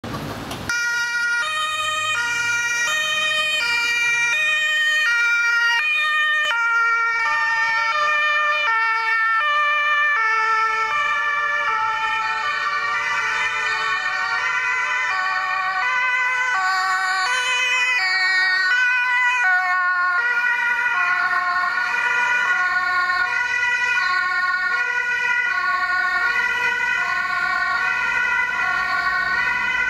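German two-tone emergency siren (Martinshorn) on a VW T5 patient-transport ambulance, switching between two pitches about twice a second as the vehicle drives past. From about twelve seconds in, a second two-tone siren overlaps it, out of step with the first.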